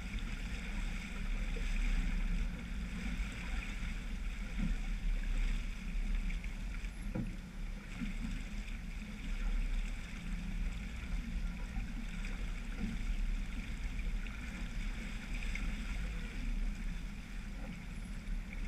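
Steady wind buffeting the microphone over the rushing hiss of a sailboat's wake and water along the hull under sail. A faint single knock about seven seconds in.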